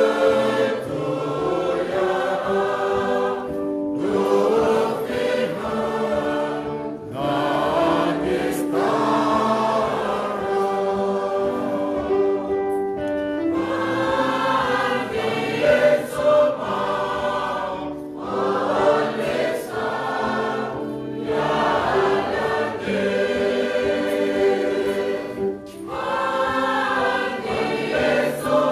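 Church choir singing a hymn in several voices, in phrases a few seconds long with short breaks between them. A few sharp hits sound partway through.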